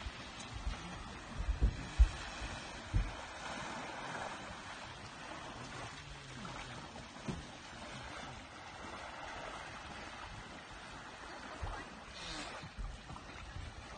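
Sea water lapping and trickling in the shallows, an even wash. A few sharp low thumps come in the first three seconds.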